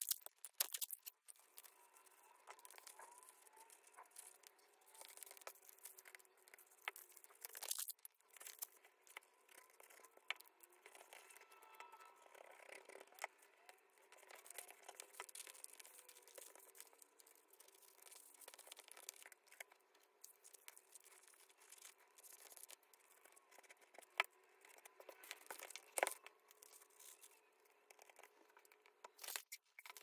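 Faint paper handling: sheets of paper rustling and crinkling, with some tearing and scattered small taps and clicks.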